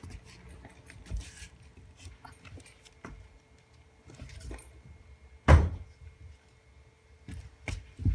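Scattered clicks and handling knocks, with one loud, short thump about five and a half seconds in and another near the end.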